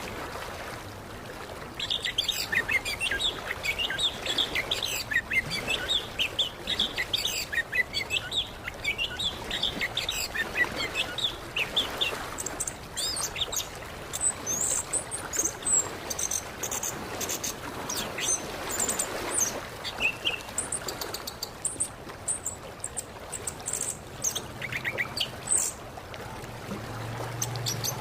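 Orange-headed thrush singing a fast, varied song of chirps and twitters. The notes crowd together from about two seconds in, and in the second half they turn sparser and higher-pitched.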